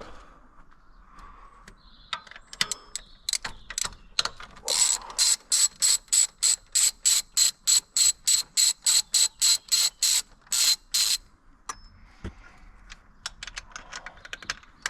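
Hand socket ratchet being worked back and forth to undo a fastener, its pawl clicking in a fast steady run of strokes, about three or four a second, after a few scattered clicks; the run stops about eleven seconds in.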